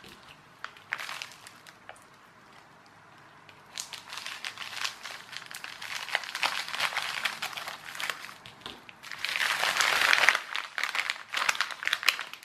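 A postal mailing bag being handled and opened by hand, crinkling and rustling. It starts after a few seconds of near quiet and is loudest in a burst about nine to ten seconds in, then turns to the crackle of the small anti-static bags being taken out.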